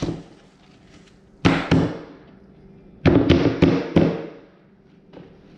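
Hand blows knocking press-fit pressboard frame pieces of a knockdown sofa into their grooves: one knock at the start, two quick ones about a second and a half in, then a run of four or five blows about three seconds in.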